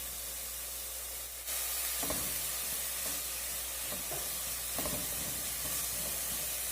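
Chopped onion and garlic sizzling in a little oil in a pan, softening rather than browning. The sizzle gets louder about a second and a half in, with a few faint taps.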